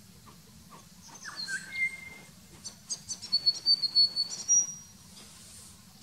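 Wild bird calling: a couple of short whistled notes about a second and a half in, then a quick run of loud, sharp high notes from about two and a half to nearly five seconds in.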